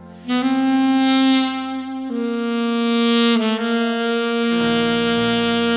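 Alto saxophone playing a slow, mournful melody of long held notes in a Korean traditional (gugak) style, over a low accompanying backing; a deeper bass part comes in about four and a half seconds in.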